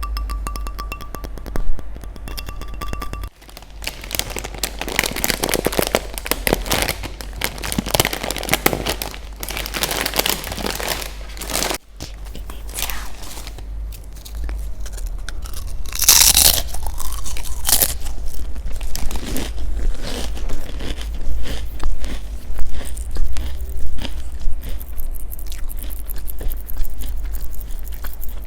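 Soft music for about the first three seconds, then close-miked crunchy food being bitten and chewed: many irregular crisp crunches, over a steady low hum.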